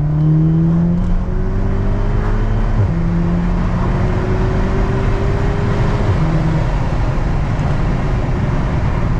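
2016 VW Golf R's turbocharged 2.0-litre four-cylinder engine accelerating, its pitch climbing and dropping at two gear changes about three and six seconds in, then holding steady. It runs cleanly on fresh NGK spark plugs, its misfire cured.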